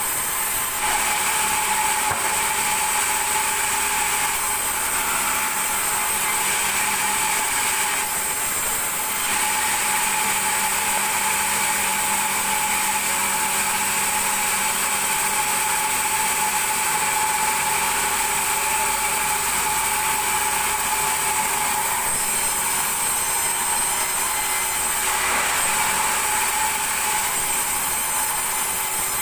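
Large vertical band saw running and cutting a thick wooden beam lengthwise: a steady, high whine over the rasp of the blade in the wood, hardly changing throughout.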